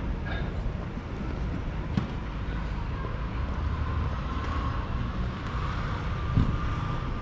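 Street ambience: a steady low rumble of traffic, with wind buffeting the microphone. A faint steady whine comes in about three seconds in, and there is a single knock near the end.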